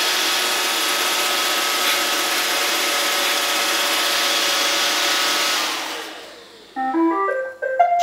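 iRobot Roomba robot vacuum running its vacuum and brush motors as it pulls onto its charging dock. The motors wind down about six seconds in, and near the end it plays a quick rising run of beeps, the tune it plays when it has docked.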